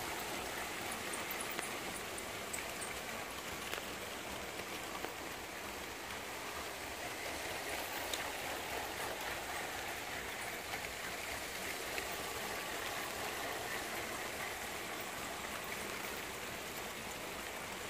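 Lego trains running on plastic track: a steady rolling clatter of plastic wheels with a few faint clicks scattered through.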